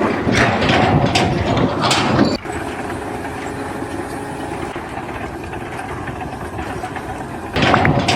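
Machinery running, noisy with a few sharp clanks at first. About two and a half seconds in, the sound changes abruptly to a steadier engine hum, and it turns loud and noisy again near the end.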